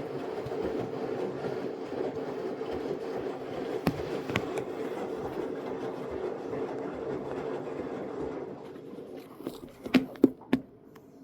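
Samsung AddWash front-loading washing machine running its wash cycle, the drum motor humming steadily as the drum turns, then stopping about eight or nine seconds in. A few sharp clicks follow near the end.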